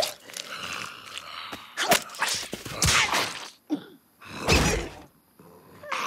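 Cartoon slapstick sound effects: a string of wordless creature grunts and squawks with sharp hits in between, about a second apart, the loudest near the middle.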